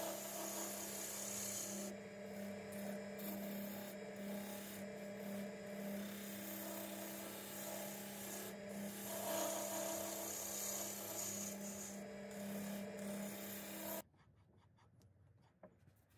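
Record Power wood lathe running with a steady hum while a turning chisel cuts a spinning walnut blank, a rough scraping hiss of shavings that rises and falls with the cut. About fourteen seconds in it cuts off abruptly, leaving only faint handling clicks.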